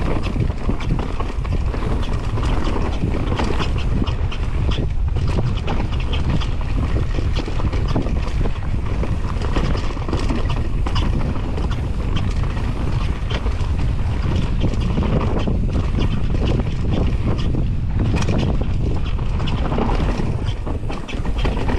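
Wind rushing over an action camera's microphone while a mountain bike descends a dirt trail at speed, with frequent clicks and rattles from the bike going over rough ground.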